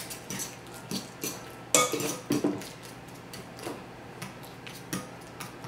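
A metal fork stirring a thick mash of banana and grated zucchini in a mixing bowl, with irregular clicks and scrapes as the fork knocks against the bowl. A few louder clicks come about two seconds in.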